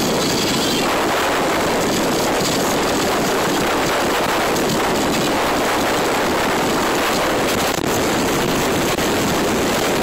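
Steady, loud wind buffeting the microphone in an open-top convertible moving at road speed.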